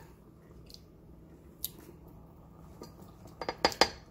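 Plastic spoon knocking and scraping against a nonstick pot while stirring rice in coconut milk: a couple of single clicks, then a quick run of sharp knocks near the end.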